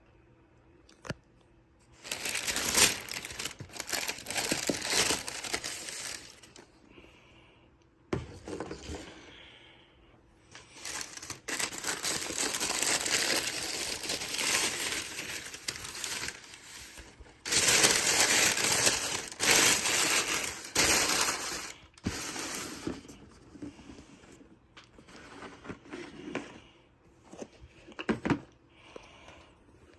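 Boot box packaging being opened and unwrapped: paper rustling and crinkling in several long bouts, with a few sharp clicks and knocks between them.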